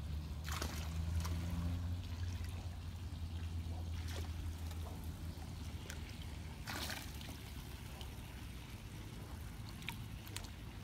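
Swimming-pool water trickling and lapping around a Great Dane standing in it, with three brief splashes, about a second in, near the middle and a little later. A steady low hum runs underneath and weakens about two-thirds of the way through.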